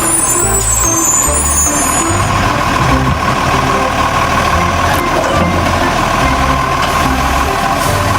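Garbage truck running: steady, loud truck engine noise with a constant high whine over it.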